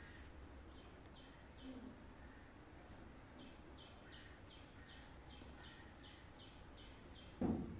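A bird calling in the background: a run of short, high chirps, three about a second in, then about ten more at roughly three a second. Near the end a single dull thump, the loudest sound.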